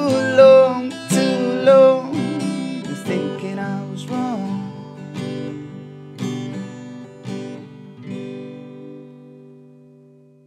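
Acoustic guitar strummed, ending a song: the strums thin out and a final chord rings and fades away near the end. A voice sings over the first two seconds and briefly again about four seconds in.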